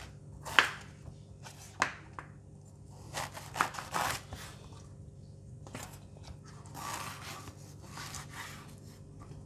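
Kitchen knife slicing lengthwise through a peeled luffa on a bamboo cutting board. The blade knocks on the board in sharp taps, several over the first four seconds, followed near the end by softer, longer sounds of the blade drawing through the flesh.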